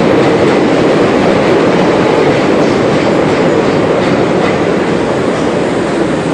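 Passing train: a loud, steady rumble with faint rhythmic clicking, easing slightly near the end.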